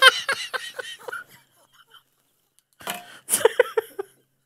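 Hard, helpless laughter from a man: a bout of quick, short, gasping laugh pulses, a pause of about a second and a half, then a second bout about three seconds in.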